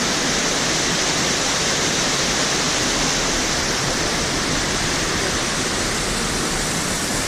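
Waterfall rushing steadily: a dense, even wash of falling water.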